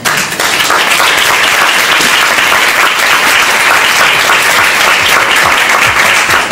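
Audience applause: many people clapping steadily, breaking out all at once.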